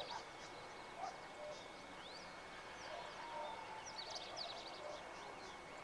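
Small birds chirping in the background in short, high, quick twitters, with a denser cluster about four seconds in, over a steady thin high tone.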